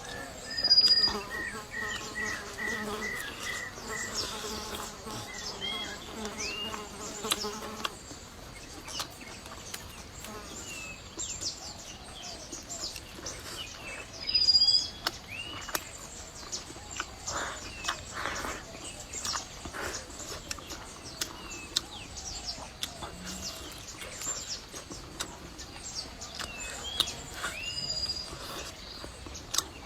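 Insects buzzing close by, a pulsing buzz for the first several seconds, with short high bird chirps now and then and scattered small clicks of eating and chewing.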